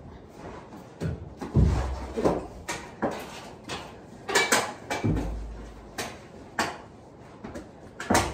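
Hockey sticks clacking and knocking against the ball, each other and the goal during close play, with a few heavier thuds of bodies and feet on a carpeted floor. A quick cluster of hits comes near the end.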